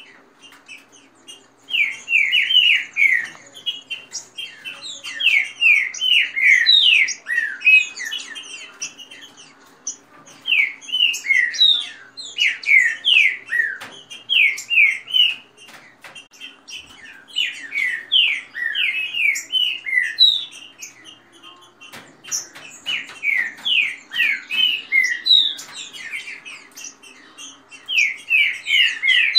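Caged green-winged saltators (trinca-ferro) singing their fast song: bursts of rapid, falling whistled notes, phrase after phrase with short pauses between.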